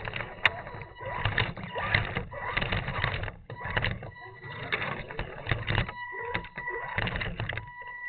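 Electric motor and drivetrain of an Axial Deadbolt RC rock crawler running in short, irregular bursts of throttle as it is driven over rough ground. In the last couple of seconds it settles into a steadier, higher whine.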